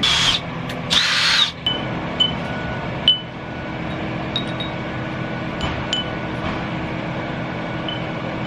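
A power drill runs in two short bursts within the first second and a half, while brackets are being fixed up outside. Scattered short, high metallic pings follow over a steady low hum.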